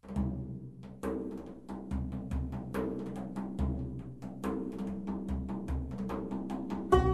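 Background music with deep drum beats about once a second under rapid tapping percussion and ringing pitched tones.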